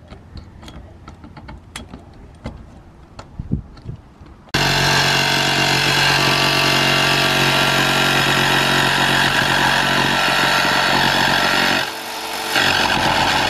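Corded jigsaw with a metal-cutting blade sawing through the sheet-metal roof of a van. After a few seconds of faint clicks, the saw starts suddenly and runs steadily for about seven seconds, stops briefly, then runs again for about a second near the end.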